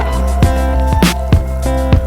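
Background music with a steady beat: a low kick drum about twice a second and a sharper snare hit about once a second under sustained chords.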